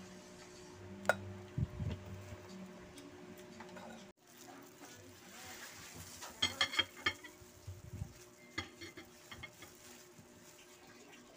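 Light clinks and taps of kitchenware: a steel cleaver and ceramic plates handled on a tray, in a few scattered knocks and then short clusters of clinks about six and nine seconds in.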